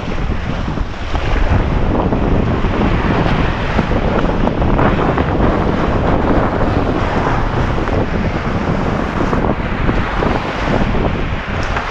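Strong wind buffeting the microphone, with waves washing onto the beach.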